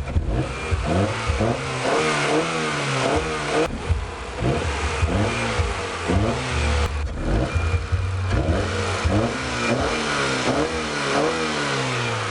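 A 1993 Honda Accord's four-cylinder engine is revved again and again with quick snaps of the throttle, each rev rising and falling back toward idle. These are snap-throttle blips used to show the engine rocking on worn-out motor mounts.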